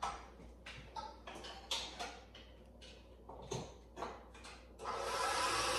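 Light clicks and knocks of the KitchenAid stand mixer's bowl being handled, then close to the end the mixer's motor starts running with a steady whir as it mashes ripe bananas.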